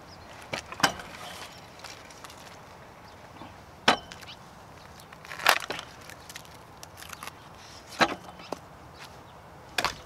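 Split firewood knocking and cracking: five sharp wooden knocks a second or two apart, the loudest about four and five and a half seconds in.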